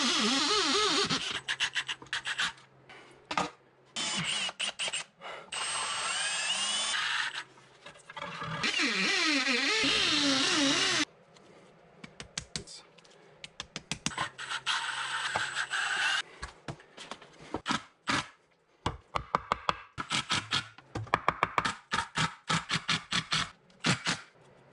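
Cordless drill boring into a concrete block wall in three long runs, its motor pitch wavering under load. After that come many short stop-start bursts and sharp taps.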